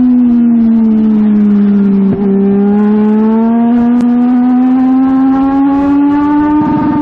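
A US Legend car's Yamaha four-cylinder motorcycle engine, heard from inside the cockpit at racing speed. Its note drops for about the first two seconds as the driver comes off the throttle into a turn, then climbs steadily as the car accelerates out of the turn.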